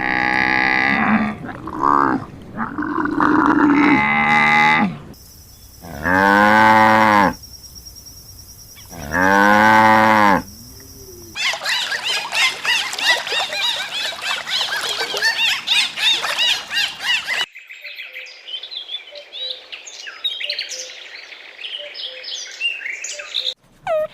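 Cattle mooing: a few calls, then two long, loud moos a few seconds apart. After about eleven seconds they give way to a long stretch of many overlapping high chirps that thins out near the end.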